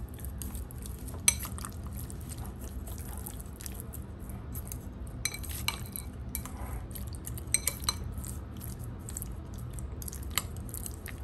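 Chopsticks clicking and scraping against a ceramic bowl while stirring raw fish fillet pieces with seasoning: light, irregular taps, a few sharper clinks among them.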